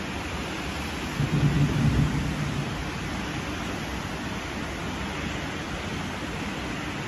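Steady hiss of heavy storm rain, with a low thunder rumble starting about a second in and lasting about a second and a half, the loudest part.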